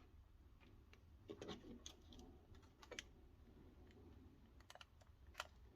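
Near silence with a few faint, short clicks and small rustles scattered through it: stripped copper wire ends being handled and pushed into a heat-shrink solder butt connector.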